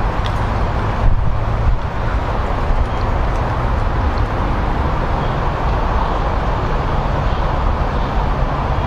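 Steady outdoor background noise: an even low rumble with hiss.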